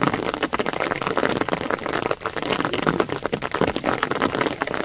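Rain pattering hard: a dense, steady crackle of many small drop hits.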